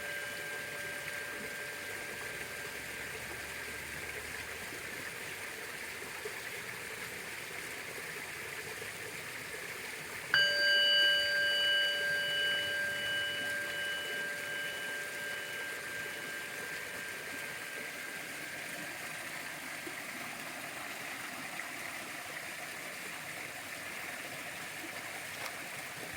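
An orin, a Japanese Buddhist bowl bell, is struck once about ten seconds in and rings with several clear overlapping tones that fade slowly over about ten seconds. The last of an earlier ring dies away at the start, and a steady faint hiss runs underneath.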